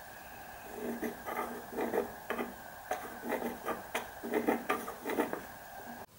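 Pencil scratching in a series of short, irregular strokes as a line is marked along a steel rule, over a faint steady hum that cuts off suddenly near the end.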